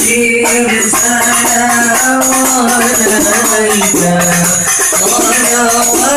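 Music with a gliding melody line over a steady shaker-like rattle.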